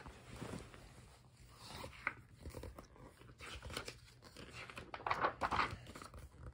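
Paper rustling as a hardcover picture book is handled and its pages turned, in short, faint crinkly bursts, the loudest about five seconds in.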